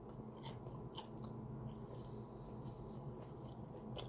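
A person biting into and chewing crispy breaded fried food, with a few faint crisp crunches about half a second and a second in, and again near the end. A steady low hum runs underneath.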